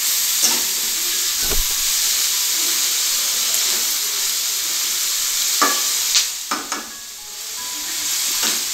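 Chopped onions and capsicum sizzling in hot oil in an aluminium kadai on high heat, with a metal spatula scraping and clinking against the pan as they are stirred. The sizzle dips briefly about seven seconds in, then picks up again.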